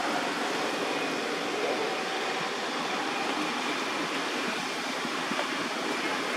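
Steady outdoor background hiss with faint, high, constant tones running through it, and no distinct events.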